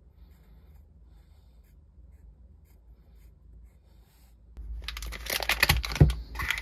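Faint room hum, then about four and a half seconds in a burst of rustling, clicks and knocks as things are handled and set down on a wooden worktable, with one sharp knock near the end.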